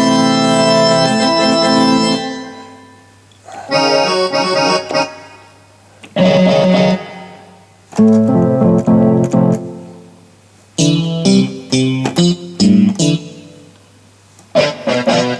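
Yamaha PSR-E423 digital keyboard played through its built-in speakers in short phrases of chords and notes. Each phrase rings out and fades away, about six times over.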